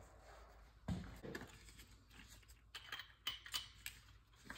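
Faint clicks and light metallic handling of a wrench and a small brass oil-burner nozzle being worked onto the burner's nozzle line. A dull knock comes about a second in, then a scatter of small sharp clicks, some briefly ringing.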